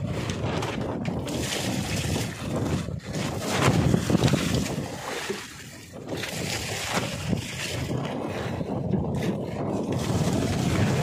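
Wind buffeting the microphone and sea water sloshing around a small outrigger fishing boat, with a louder gust about three to four seconds in. Near the end, a bucket of seawater splashes over the fish in the hold.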